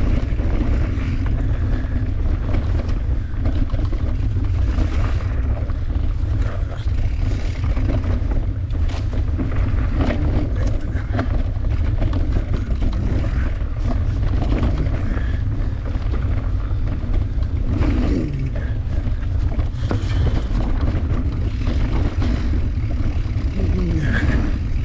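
Wind buffeting an action camera's microphone as a bicycle rolls along a dirt singletrack trail: a steady, loud low rumble mixed with tyre noise on the dirt and occasional small rattles from the bike.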